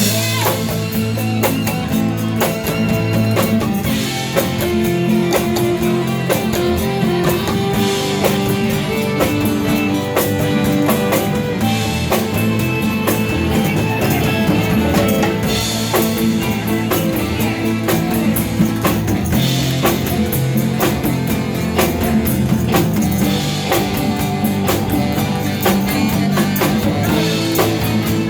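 Live rock band playing an instrumental passage, with a drum kit keeping a steady beat under electric guitar.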